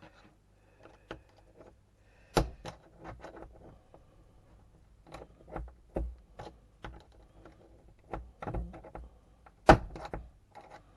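Irregular clicks and knocks of a nitro RC engine's pull-start recoil starter being handled and fitted back together by hand, with two louder knocks about two and a half seconds in and near the end.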